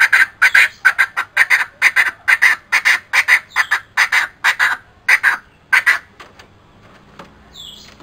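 Coucals giving a rapid run of short, harsh calls, about three or four a second, that stops about six seconds in.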